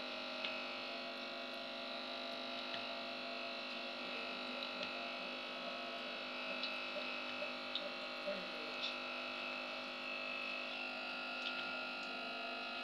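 A steady electrical hum, with light crackles and pops from batter fritters (bhalle) frying in hot oil in a steel karahi as each one is dropped in.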